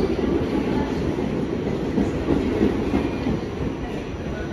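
Interior noise of an R46 subway car: a steady low-pitched rumble of the train, with irregular louder jolts in the middle.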